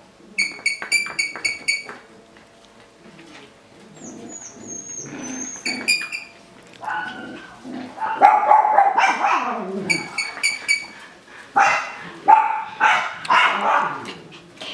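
Coton de Tulear puppies barking and yapping in play, with a quick run of short high squeaks near the start and a string of louder barks through the second half.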